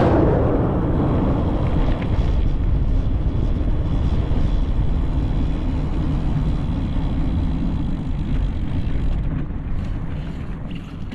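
Wind buffeting the microphone of a camera on a bicycle riding at speed: a steady low rumble of wind noise that eases off near the end as the bike slows.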